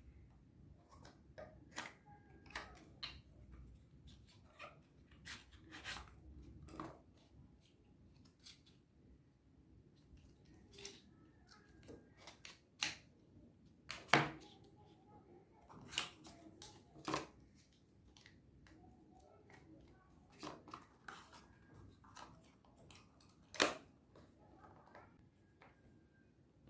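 Scattered small clicks, taps and knocks from handling a phone and its packaging, a few sharper knocks among them.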